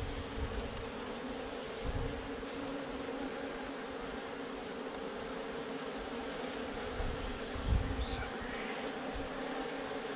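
A mass of Africanized honey bees buzzing steadily close by, with a couple of low thumps, about two seconds in and near eight seconds in.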